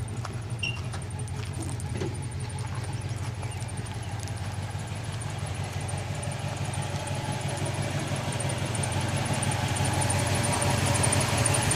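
The 1971 Chevrolet ambulance's engine idling steadily after sitting in a barn, started on a fresh battery. It grows louder toward the end, with a few light clicks in the first couple of seconds.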